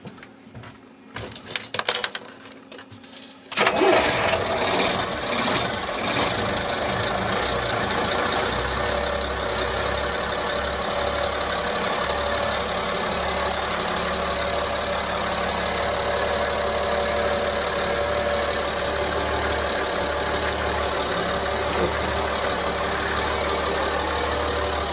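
DAF 575 six-cylinder marine diesel cold-started: the starter cranks for about two and a half seconds, then the engine catches with a sudden surge and runs on at a steady idle. It is loud, heard with the engine hatch open, and a deeper low rumble settles in a few seconds after it catches.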